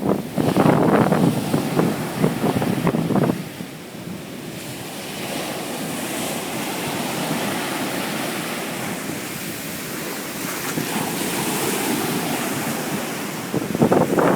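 Ocean surf washing onto a beach, a steady rushing that swells and fades. Wind buffets the microphone hard for the first few seconds and again near the end.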